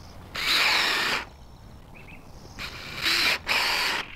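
Cordless drill run in short bursts of under a second each: one about half a second in, then three in quick succession near the end.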